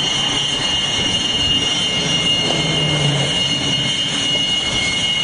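Jet engine noise on an aircraft carrier flight deck: a steady high whine over a broad, even rush.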